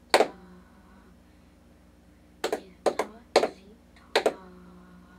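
Two people clapping a written rhythm together in a small room: one clap, a pause of about two seconds, then a quick run of claps. Several of the claps sound doubled because the two clappers are slightly out of step.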